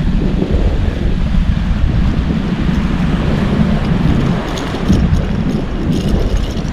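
Wind buffeting the microphone over shallow sea water, a steady low rush throughout. A few light splashes come in the second half.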